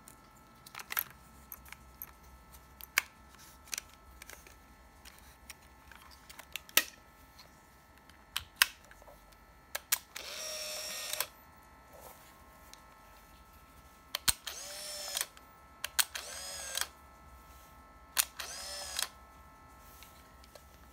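Clicks and snaps of a Konica POP AF 200 35mm compact camera being handled and shut, then its film-winding motor whirring four times, about a second each, as film is loaded and advanced.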